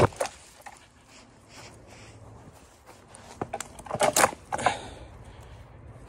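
A few sharp knocks and clatters, like objects being handled: one pair right at the start and a quick cluster from about three and a half to five seconds in.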